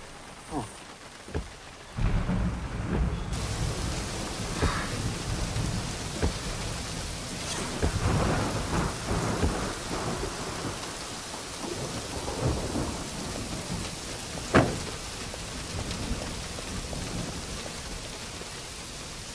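Heavy rain with rumbling thunder, coming in suddenly about two seconds in. A single sharp crack stands out about fourteen seconds in.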